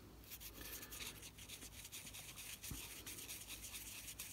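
Fiberglass pen scrubbing the circuit board of a Casio 31QS-11 watch module in quick, faint scratchy strokes, working off crystallized battery-leak corrosion.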